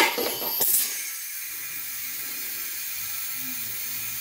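Compressed air hissing steadily through an air-hose chuck into an ATV tire's inner tube, which is being pumped well past normal pressure to seat the tire bead on the rim. Two brief sharp clicks come in the first second.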